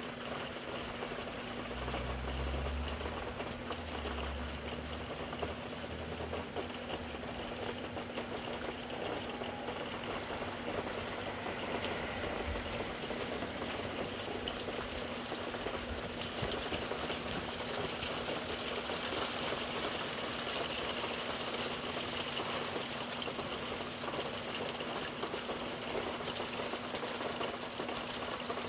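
Rain falling steadily: a dense patter of drops with many scattered sharp ticks, growing a little heavier in the second half.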